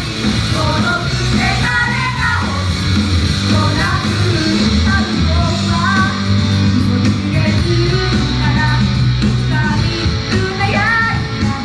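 Idol group singing live over loud rock band music, the sung melody running throughout.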